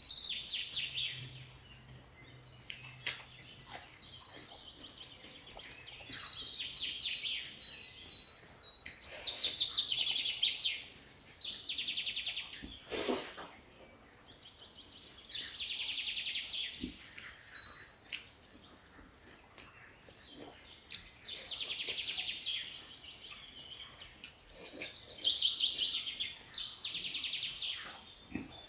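A bird singing, repeating short rapid trilled phrases every few seconds, each sliding down in pitch. A few sharp clicks come in between, the loudest about a third of the way in.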